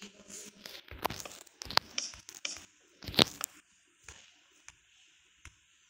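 Irregular knocks and crunching, scraping sounds, the loudest a sharp knock about three seconds in, followed by a few faint clicks.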